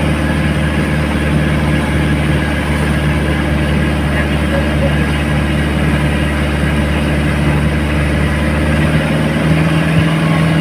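Boat engine running steadily under way, its pitch rising slightly near the end.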